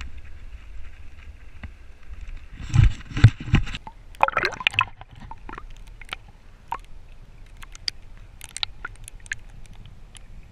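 River water sloshing and gurgling around an action camera being pushed under the surface: a few heavy knocks about three seconds in, a splashy rush at about four seconds, then a muffled underwater rumble with scattered small clicks.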